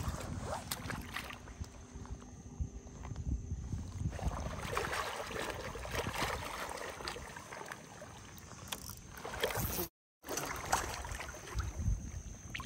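Shallow water sloshing and splashing around a person wading in chest waders, with scattered knocks and clicks from handling gear. The sound cuts out completely for a moment near the end.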